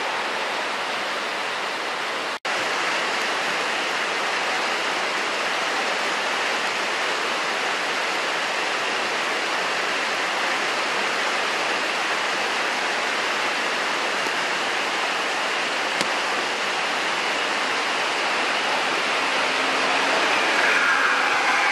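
Heavy rain falling in a steady, loud hiss. Near the end a coach bus comes close, and its engine and tyres on the wet road rise over the rain.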